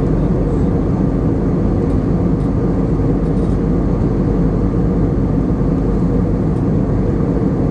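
Airliner in flight heard from inside the passenger cabin: a steady, even rush of engine and airflow noise, strongest in the low range.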